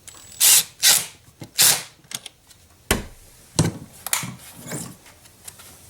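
Hand-tool work on the positive battery cable terminal as it is fitted onto the post and tightened: three short scrapes in the first two seconds, then a few sharp metal clicks and knocks.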